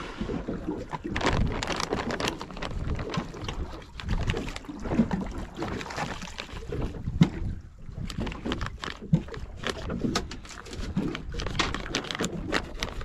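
Knife cutting a half-frozen salmon on a bait board: irregular taps and scrapes, the fish still a bit frozen and hard to fillet.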